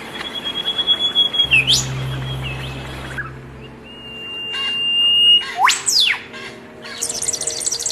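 Birds calling: long, steady whistled notes, then a steep swooping call about three-quarters of the way through and a fast high trill near the end. A low hum sits under part of the first half.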